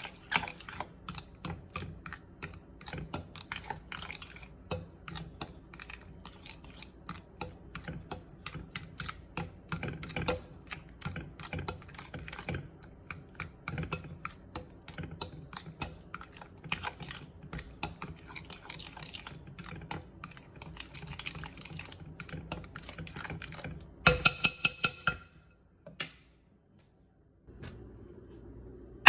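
Kitchen utensils clicking and tapping quickly and unevenly against a board or bowl during food preparation. About 24 seconds in there is a brief faster run of ringing taps, and then the tapping stops.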